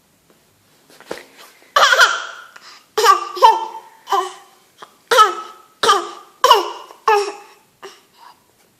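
A small child coughing on request: a string of about ten short, voiced coughs, each dropping in pitch, deliberate coughs made on cue.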